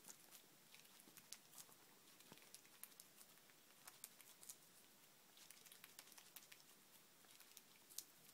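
Faint, irregular wet clicks and smacks of a young gray squirrel nibbling a piece of peach held in its forepaws.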